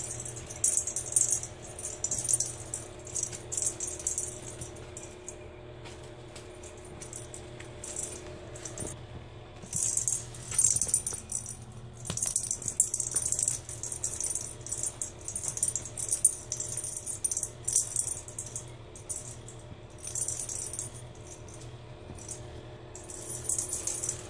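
A plastic cat-toy ball with a rattle inside, batted and rolled about by kittens: irregular bursts of rattling, on and off, with a lull of a few seconds about a quarter of the way in.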